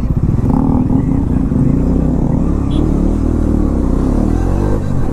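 Motorcycle engine running while the bike rides through traffic. The note climbs as it pulls away and then drops near the end as it eases off.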